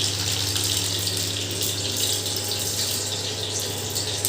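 Mustard seeds and urad dal sizzling in hot oil in a kadai, a steady hiss with faint crackles, over a steady low hum.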